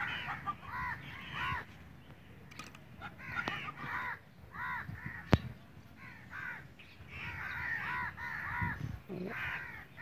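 Crows cawing over and over in runs of several calls, with a single sharp click about five seconds in.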